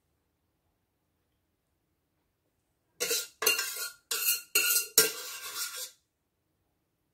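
Spoon scraping and clinking against a cooking pot of honey-glazed lamb, about five quick strokes with a faint metallic ring, starting about three seconds in after silence.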